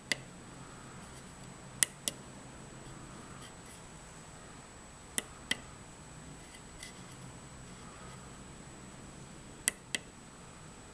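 Small tactile pushbuttons on a Velleman K8048 PIC programmer board clicking: three press-and-release pairs, the two clicks of each pair about a quarter second apart and a few seconds between presses. A faint steady electrical hum with a thin high whine runs underneath.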